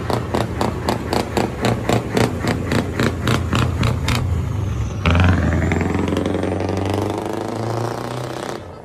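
Scania V8 diesel truck engine through an open exhaust pipe, running with a fast, even pulsing of about four to five beats a second. About five seconds in it opens up loudly and climbs in pitch as the truck accelerates past, then fades as it pulls away.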